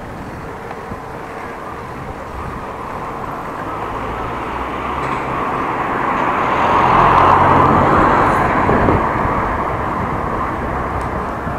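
A motor vehicle passing by: engine hum and road noise build to a peak about seven seconds in, then ease off.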